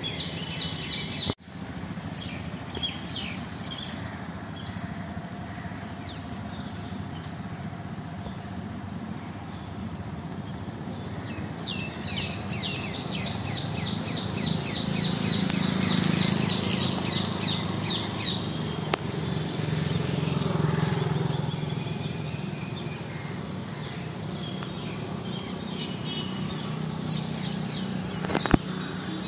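Parrots and other birds calling, with a fast run of repeated high chirps, about three or four a second, in the middle. A low rumble swells and fades underneath.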